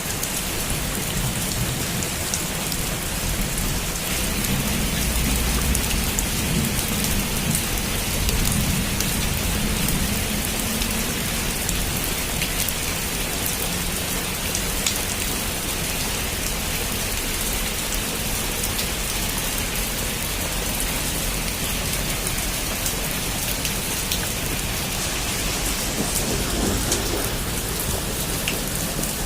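Heavy rain falling steadily on a rooftop, a dense patter of drops. A low rumble of thunder swells about five seconds in and fades by ten, and rises again faintly near the end.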